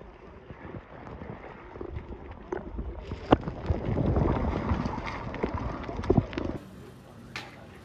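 Muffled underwater sound picked up by a camera held below the sea surface: a low sloshing rumble with scattered sharp knocks and clicks, swelling about four seconds in. About a second before the end it drops to a quieter, thinner background.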